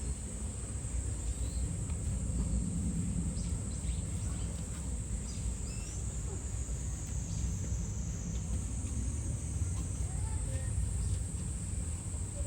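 Outdoor ambience: a steady high-pitched insect drone over a low background rumble, with a few short bird chirps.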